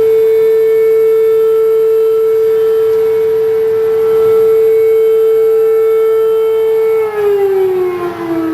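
Federal Signal Thunderbolt tornado siren sounding a steady, loud wail on one held pitch; about seven seconds in, the pitch starts to fall smoothly as the siren winds down.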